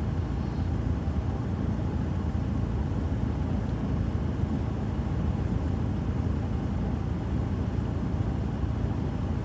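Strong gale-force wind buffeting the microphone in a steady low rumble, over the wash of rough surf breaking on the shore.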